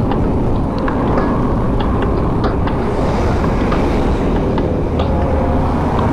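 Wind buffeting the microphone over tyre and road noise from a fixed-gear bike being ridden along a road, with scattered light clicks and rattles from the bike.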